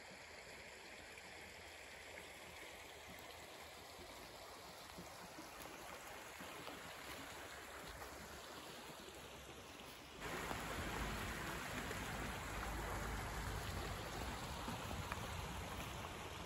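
A shallow river flowing. It becomes clearly louder about ten seconds in.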